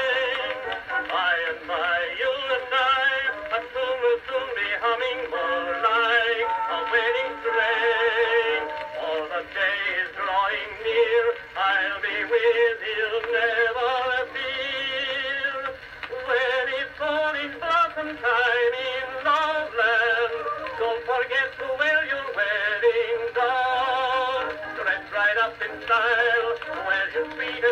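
Edison Amberola 30 cylinder phonograph playing an early acoustic recording of a popular song, with a male voice singing over the accompaniment. The sound is thin, with almost no bass or treble.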